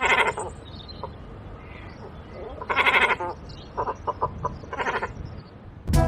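Cormorant calling: a few hoarse, pitched calls, one at the start, one about three seconds in followed by a quick run of short notes, and one near five seconds.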